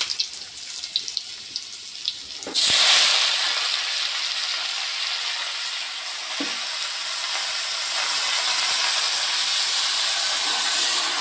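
Freshly washed mustard greens hit hot oil in an iron kadai over a wood fire, setting off a sudden loud sizzle about two and a half seconds in. The sizzle keeps up steadily as the steaming greens are stirred, with one soft knock partway through. Before the greens go in there is only faint crackling.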